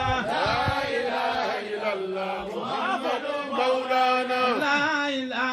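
Islamic devotional chanting by male voices through a microphone and PA, melodic lines moving over one steady held low note. A few low bumps sound in the first second.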